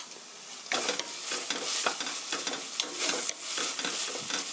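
Sauce of onion and gochujang sizzling in a stainless steel frying pan, with a wooden spatula stirring and scraping through it in quick irregular strokes that start about a second in.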